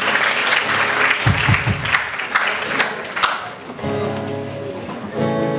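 Audience applauding for the first few seconds, with a few low thumps about a second in. Near the end a band instrument plays a couple of held, pitched notes before the song begins.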